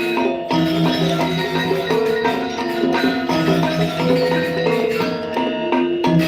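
Balinese gamelan music: bronze metallophones play a dense run of rapid struck notes over held low tones.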